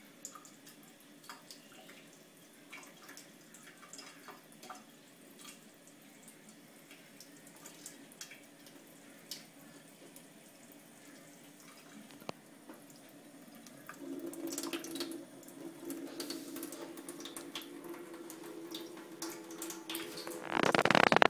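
Thin stream of tap water running into a stainless steel sink, with small drips and splashes as a kitten paws at and laps from it. The running water gets louder and steadier about two-thirds of the way in. Near the end there is a loud scrabbling clatter as the kitten nearly falls getting out.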